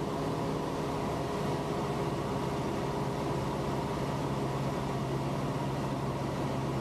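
Cabin noise of a 1973 Cessna 172M in flight: its four-cylinder Lycoming O-320 engine and propeller running at a steady, unchanging drone over a constant hiss.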